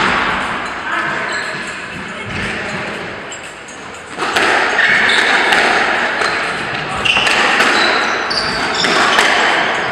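Squash being played: the ball smacks against rackets and the court walls, echoing, with shoes squeaking on the wooden floor. It gets louder and busier about four seconds in.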